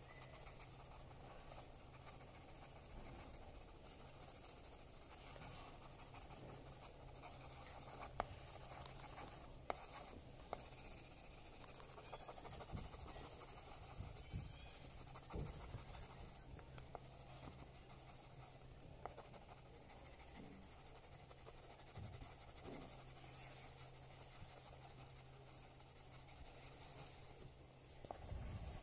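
Faint scratching of a colored pencil shading on paper, with scattered light ticks and a low steady hum underneath.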